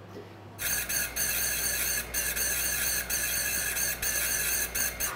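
Electric piston ring filer grinding the end of a Napier second compression ring over its motor's steady hum, filing the ring end gap open from about 3 thousandths toward the 23 thousandths wanted. The grinding starts about half a second in, breaks off briefly several times, and stops near the end.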